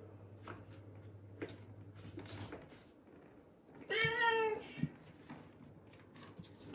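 A black domestic cat meows once, about four seconds in: a single clear meow of about half a second as it paws at a closed door. A few faint taps come before it.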